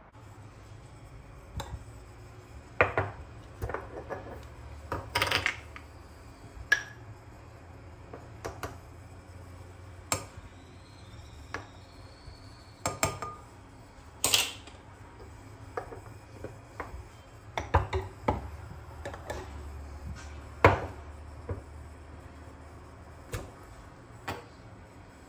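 Dishes and kitchenware clinking and knocking as they are handled and set down, a series of separate sharp clatters with pauses between them, over a steady low hum.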